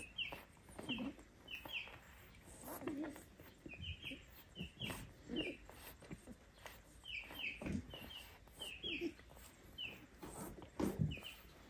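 Tiny kitten squeaking: short, high-pitched mews, often in quick pairs, repeated all through, with softer low sounds among them.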